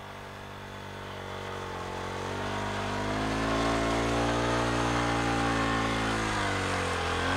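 Four-wheeler ATV engine running as it climbs through snow, growing steadily louder. The engine note rises over the first few seconds, holds, then dips briefly near the end as the revs drop.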